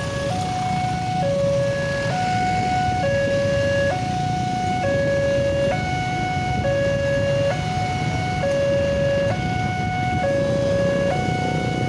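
Railway level-crossing warning alarm sounding a two-tone hi-lo signal. It alternates between a lower and a higher tone roughly every second, the warning that a train is approaching. Low rumble of motorcycle and car traffic underneath.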